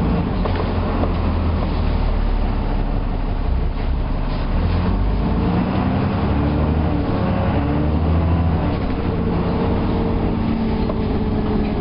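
Alexander Dennis Enviro400 double-decker bus engine running under way, a steady low drone whose pitch climbs and shifts in steps through the middle and latter part.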